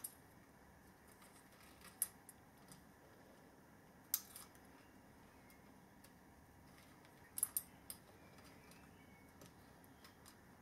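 A few light, sharp clicks and taps from handling wiring and motor parts against a quiet background. The sharpest comes about four seconds in, and a quick pair follows about seven seconds in.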